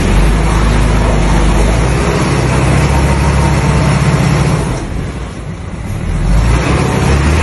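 Dump truck's diesel engine revving hard under load, the truck stuck with its front wheel sunk in a hole. The revs ease about five seconds in and build again a second later.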